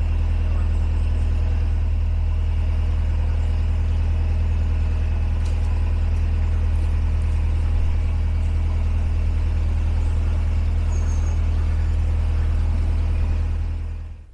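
Narrowboat's diesel engine running steadily under way with a low hum, cutting off suddenly near the end.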